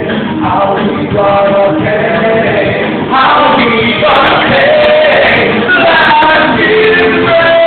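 Music with a group of voices singing over it, loud and continuous, getting louder about three seconds in.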